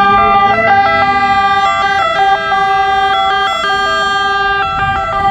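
Several two-tone emergency-vehicle sirens sounding at once, loud. Each switches back and forth between a high and a low note at its own pace, so the notes overlap out of step.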